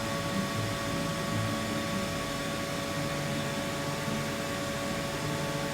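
Steady hum of a diesel injector test bench standing by, with several constant tones over a noise floor and no distinct events.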